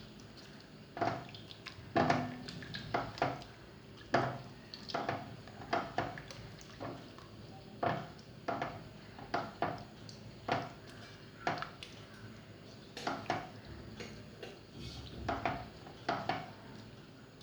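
Spoon clinking and scraping against a cooking pot while prawn masala thinned with hot water is stirred: a string of short knocks, a little more than one a second.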